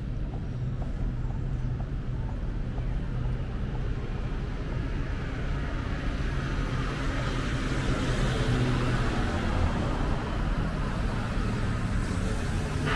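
City street traffic: a steady low hum of vehicle engines, with the tyre noise of a passing vehicle swelling and fading about seven to ten seconds in.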